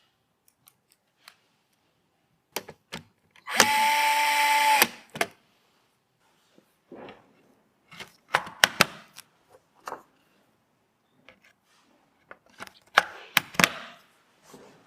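A small electric screwdriver whirs steadily for about a second, amid sharp clicks and taps of hardware and parts being handled and fitted during a PC assembly.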